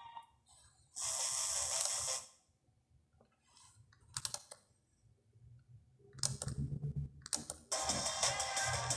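An H-Buster HBD-7200MP car stereo being switched between sources: a burst of hiss-like noise from its speakers about a second in, sharp clicks of its front-panel buttons, and music from the speakers coming in over the last couple of seconds.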